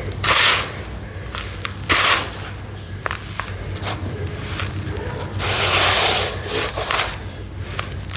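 Dried sawdust-and-sand mixture crumbling in water: three gritty crackling, fizzing bursts, the longest near the end, with small sharp ticks of falling bits in between, over a steady low hum.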